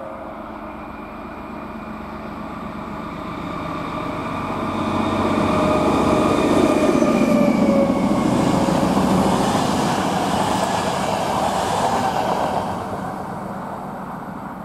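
Locomotive-hauled passenger train of Czech Railways coaches passing close by. The rolling wheel-and-rail noise builds over several seconds, holds loud for about seven seconds as the coaches go past, then fades as the train moves away.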